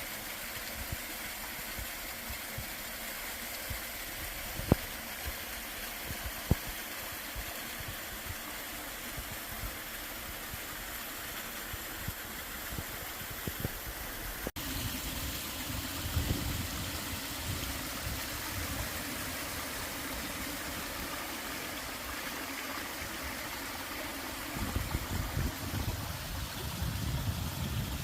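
Mountain-stream water pouring over a small waterfall into a rock pool, a steady rushing. The sound cuts about halfway through to a fuller, deeper rush, and two short clicks stand out in the first quarter.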